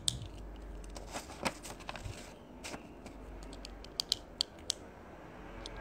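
Scattered light taps and clicks at an uneven pace, several of them close together about four seconds in, over a faint steady low hum.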